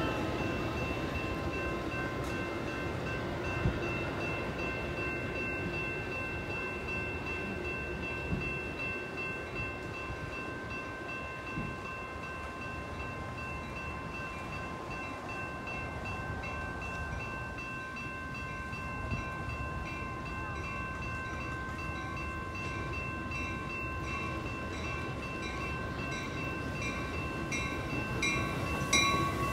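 Metra commuter trains at a station platform. A passing train's rumble fades away at the start, and a steady ringing, typical of a railroad crossing warning bell, carries on throughout. Near the end a second Metra train approaches and grows louder.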